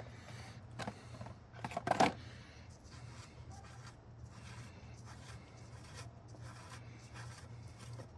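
Plastic oil filter housing and filter cartridge being handled as they are removed from the engine: scattered light clicks and scrapes, the loudest knock about two seconds in, over a low steady hum.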